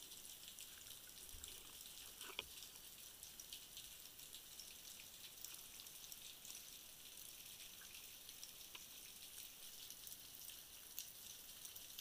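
Faint underwater ambience picked up by a diving camera: a steady high hiss full of tiny crackling clicks, with a few slightly sharper clicks scattered through.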